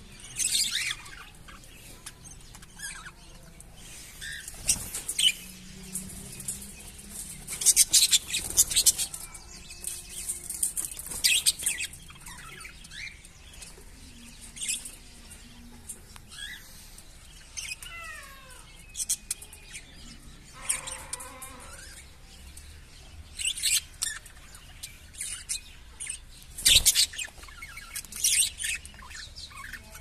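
Caged parakeets calling: short, sharp, high-pitched chirps that come in scattered bursts, with a few sliding whistle-like calls past the middle.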